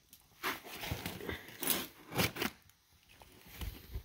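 Utility knife blade slicing through packing tape and cardboard along a box seam, in several short scraping, crackling strokes.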